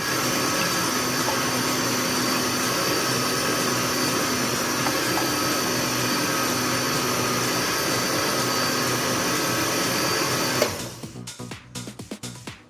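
Countertop blender running steadily while blending a liquid punch of breadfruit, okra, peanuts and milk, its motor whining at a constant pitch, then switched off abruptly about ten and a half seconds in.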